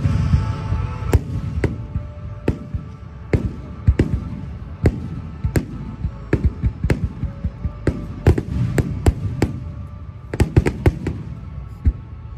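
Fireworks going off at irregular intervals, sharp bangs with rumbling echoes and a quick cluster of them a little after ten seconds in, over background music.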